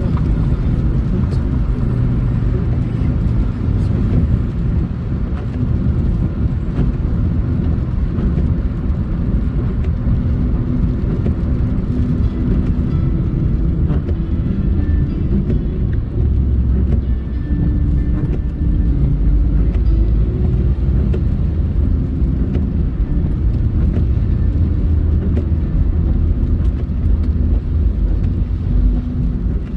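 Steady low rumble of a car driving on the road, with engine and tyre noise continuous throughout.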